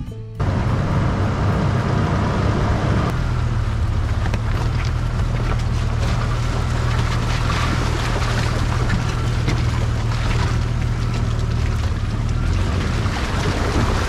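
Music cuts off about half a second in. A Jeep then drives through a shallow creek, its tyres churning and splashing the water over a steady low engine hum. The hum fades near the end while the water noise goes on.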